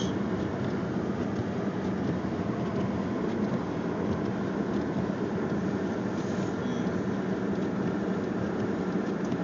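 Steady road and engine noise inside the cabin of a moving car, a constant low rumble and hiss.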